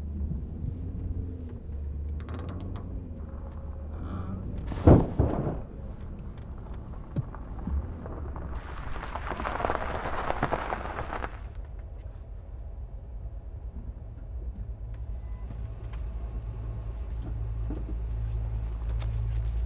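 A single sharp loud bang about five seconds in, with a smaller knock just after, over a low steady rumble; a brief hiss of noise follows a few seconds later.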